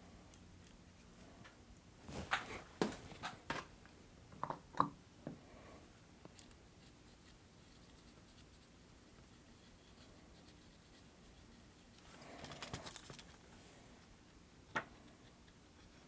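Scattered light clicks and taps, then a short burst of scratchy scrubbing: a circuit board being cleaned of old solder flux with isopropyl alcohol. One sharp click comes near the end.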